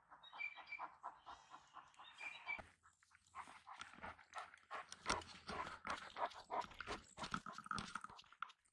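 A Great Dane panting in quick, rhythmic breaths. After about two and a half seconds, footsteps crunch steadily over a dry, sandy trail strewn with dead grass.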